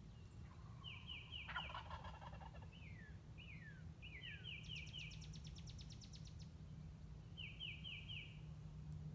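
Wild turkey gobbler gobbling once, a rapid rattling call about a second and a half in. Songbirds sing around it with repeated short high downslurred notes and a fast high trill around five seconds in, over a steady low hum.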